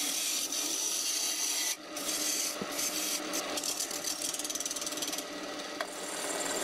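Turning tool cutting a spinning green oak blank on a wood lathe: a steady rasping hiss as shavings come off, over the lathe's running hum. The cut eases off briefly about two seconds in and again near five seconds.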